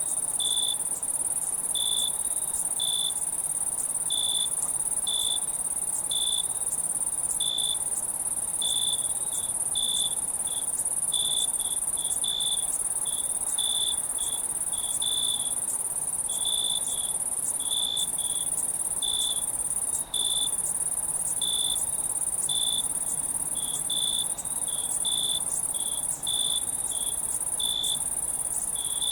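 Crickets chirping on a summer night: a steady, very high-pitched insect trill, with a lower, short chirp repeating irregularly, one or two a second.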